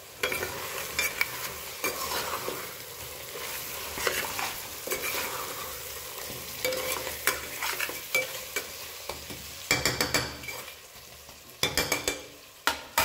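Food sizzling and frying in a pan while a utensil stirs and scrapes it: irregular clinks and scrapes over a steady hiss.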